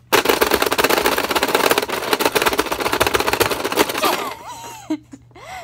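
Rapid mashing of the plastic buttons on a Pie Face Showdown game: a dense, fast clatter of clicks that stops about four seconds in, as the game's red hand swings into one player's face.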